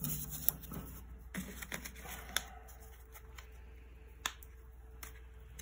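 A few light, sharp clicks and soft handling noises as small bolt hardware is picked up and fitted by hand.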